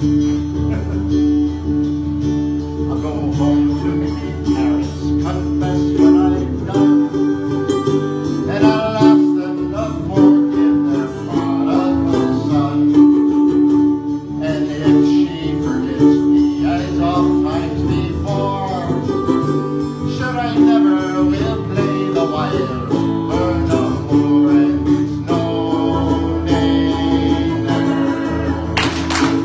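Folk music with acoustic guitar strumming under a sustained low note and a moving melody line, continuous throughout.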